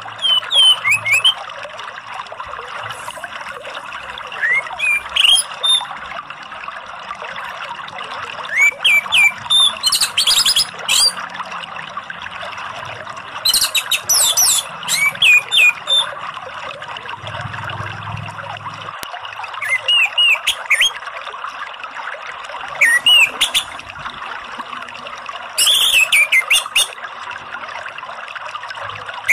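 Orange-headed thrush (anis merah) singing in loud phrases of rapid sweeping whistles and harsh chattering notes, repeated every few seconds. Under the song runs the steady rush of running water.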